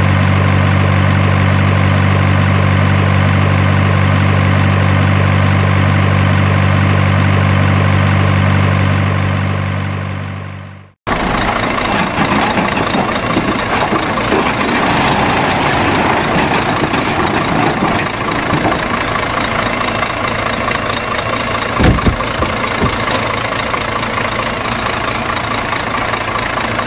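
Truck engine sound effect idling steadily, fading out about ten seconds in. A rougher, noisier engine-like sound then follows, with a single thump about twenty-two seconds in.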